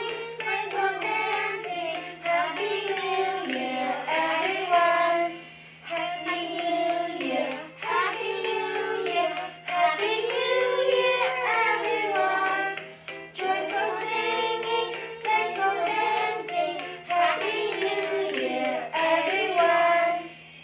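Young children singing a song together in sung phrases, with short breaks between them.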